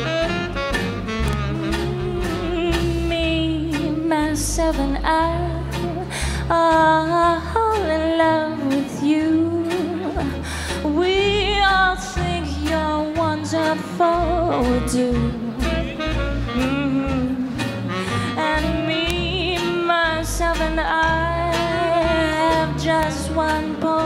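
Live swing jazz band playing: a woman singing over saxophone, plucked double bass and drums, with a steady swinging beat.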